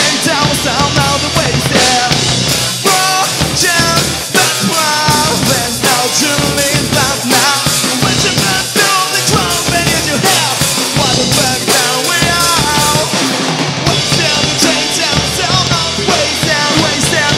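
A rock band playing live: a male singer on a handheld microphone over two electric guitars, a bass guitar and a Pearl drum kit.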